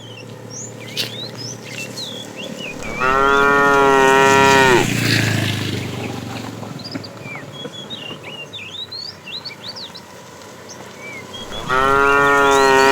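Cattle mooing: two long, loud moos, the first about three seconds in and the second starting near the end.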